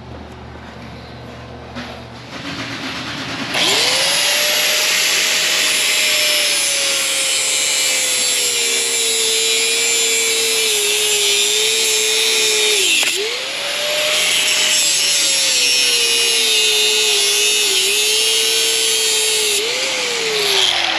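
Power saw cutting through rubber in two long passes, with a short break about two-thirds of the way through. Each time the motor's hum starts high and slowly sags as the blade takes the load.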